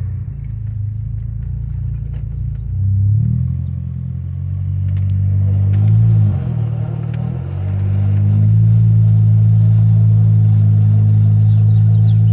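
Saab 9-3's engine running under way: the revs climb about three seconds in, fall away around six seconds, then climb again and hold steady until near the end.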